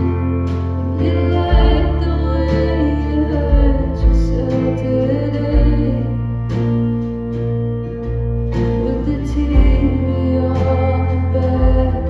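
Live band playing a slow song: strummed acoustic guitar, electric bass and drums, with a woman singing over them.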